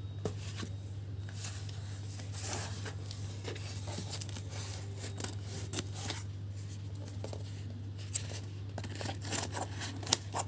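Opening a delivered parcel by hand: scattered clicks, short rustles and tearing of packaging material, over a steady low hum.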